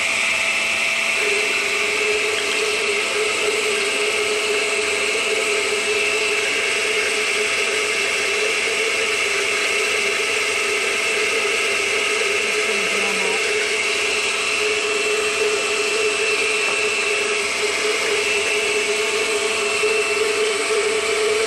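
Glass-jar countertop blender running steadily at speed with a constant whine, blending a liquid lemon-juice and olive-oil marinade.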